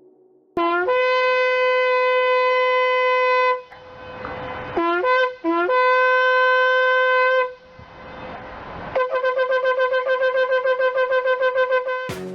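Shofar blasts. A long note scoops up into a steady pitch and is held for about three seconds. Two short scooped blasts follow, then another long held note, and finally a rapid run of short staccato pulses, about seven a second.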